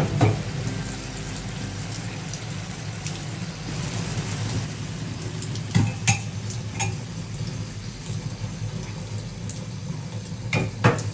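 Squid simmering in soy-vinegar adobo sauce in a pan: a steady bubbling sizzle. A few short sharp knocks sound about six seconds in and again near the end.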